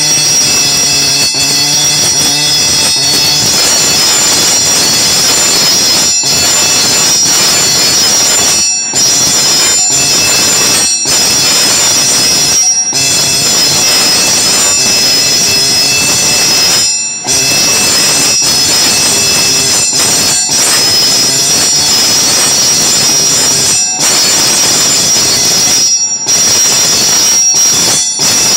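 Pneumatic dot-peen marking machine's stylus hammering characters into a curved metal workpiece: a loud, high-pitched continuous buzz, broken by brief pauses every few seconds between strokes.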